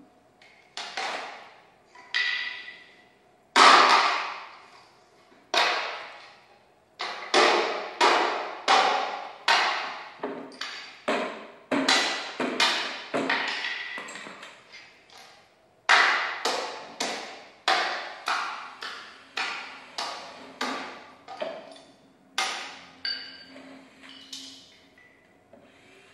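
A long series of sharp struck impacts, each ringing out and fading within about a second. They come a couple of seconds apart at first, then about two a second, with the loudest about four seconds in.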